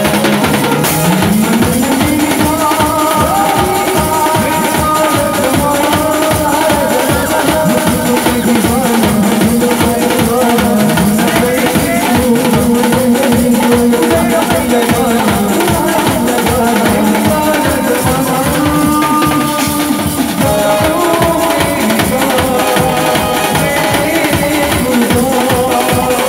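Drum kit played live with fast, dense beats under a sliding, wavering melody line from the band.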